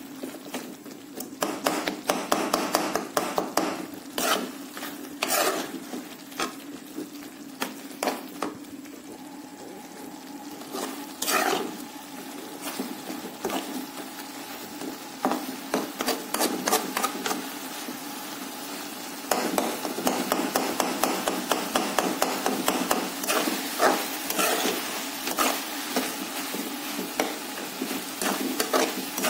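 A spoon stirring a tomato and chicken masala in a metal pot, scraping and knocking against the pan in repeated bursts, with a light sizzle of frying. The stirring comes in spells and is heaviest through the last ten seconds, over a steady low hum.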